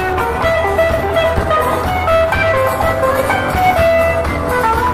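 Live band playing an Irish reel instrumental: a quick melody of short notes over electric and acoustic guitars, bass guitar and drum kit.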